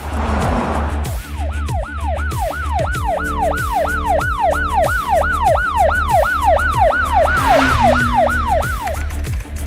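Ambulance siren in a rapid yelp, its pitch sweeping up and down about two and a half times a second. It starts about a second in and stops near the end, over background music with a steady bass beat.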